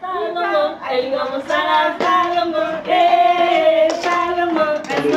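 Women singing a song in phrases about a second long, with held notes.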